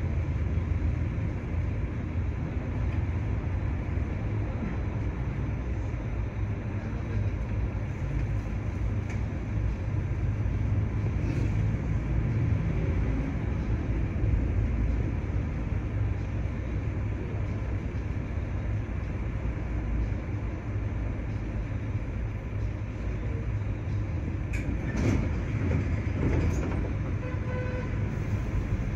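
Steady low rumble of a stopped tram and a city bus idling alongside, heard from inside the tram, with a few faint clicks near the end.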